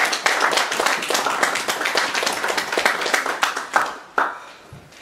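Audience applauding, many hands clapping at once, dying away about four seconds in with a last stray clap or two.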